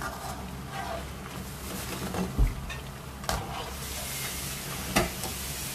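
Gram-flour potato and onion pakoras sizzling as they deep-fry in hot oil in a wok: a steady crackling hiss. It is broken by three sharp clicks of a metal skimmer against the pan, at about two and a half, three and a half and five seconds.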